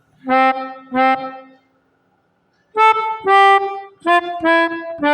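Pianika (melodica) played in short blown notes: two notes on the same pitch, a pause, then a run of notes stepping down in pitch, imitating the 'telolet' bus-horn tune.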